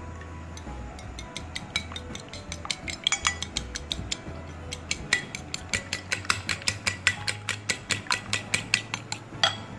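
A fork beating two raw eggs on a ceramic plate, its tines clicking rapidly against the plate. The strokes start sparse and grow quick and steady from about three seconds in, stopping just before the end.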